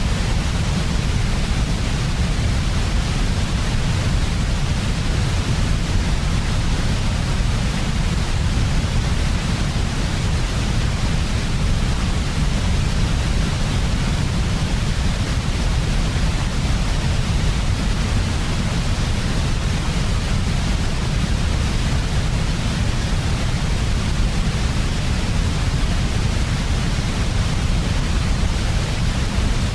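Steady synthetic white noise of the kind played for baby sleep: an unchanging hiss with a heavy low rumble beneath it, without rises, falls or breaks.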